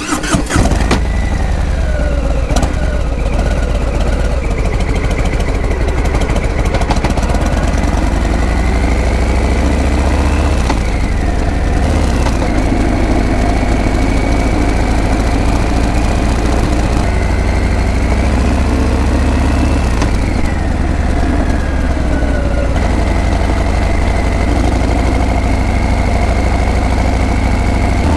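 Harley-Davidson Breakout's V-twin engine and exhaust running, a steady deep rumble whose pitch rises and falls several times as the revs change.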